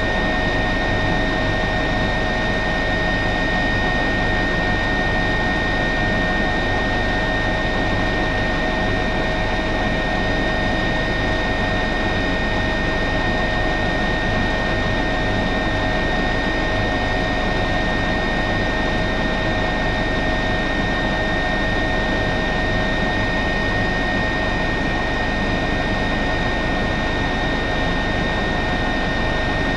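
Airbus H145 twin-turbine helicopter in steady cruise flight, heard from inside the cockpit: an unchanging turbine whine with several fixed high tones over a low rotor rumble.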